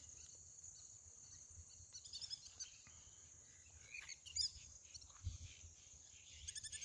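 Faint steady chorus of crickets or other insects, with a few short bird chirps about two seconds in, around four and a half seconds in, and a quick run of notes near the end, over a low rumble of wind on the microphone.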